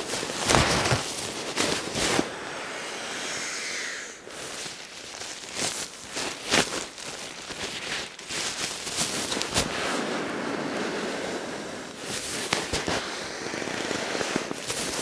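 Exped nylon pump sack rustling and crinkling as it is gathered full of air and squeezed down to inflate a sleeping mat. Irregular sharp crackles of the fabric, with a few stretches of steady hiss.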